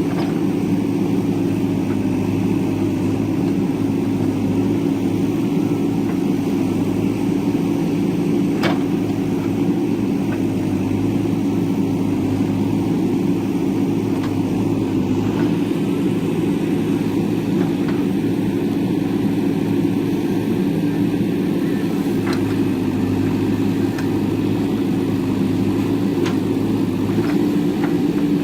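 JCB backhoe loader's diesel engine running steadily with a constant low hum, with a few sharp clicks or knocks about nine seconds in and several more near the end.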